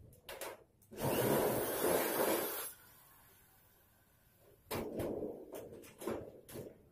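Electric drill running in one burst of under two seconds, drilling at the galvalume gutter on a steel roof frame. After it comes a run of sharp metallic knocks and clatter as the galvalume sheet is handled and pressed into place.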